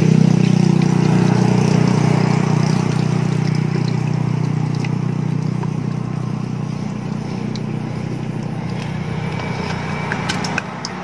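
A steady low machine hum, fading slightly, under the wet squelching of fermented rice squeezed by hand through a plastic basket strainer. A few sharp clicks come near the end.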